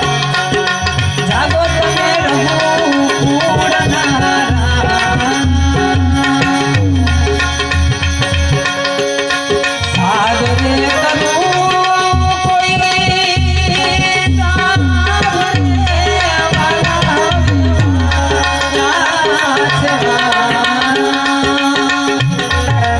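Indian devotional music: a harmonium plays the melody over a steady hand-drum rhythm, with no break in the playing.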